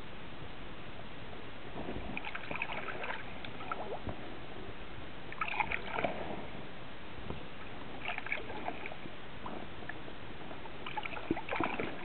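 Kayak paddle strokes: water splashing and dripping off the paddle blade in short clusters about every three seconds, over a steady hiss.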